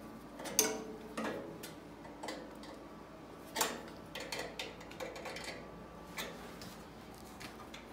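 Scattered clicks and light metallic knocks, the sound of bandsaw parts and hand tools being handled and fitted during assembly. The loudest click comes a little after the start and another near the middle.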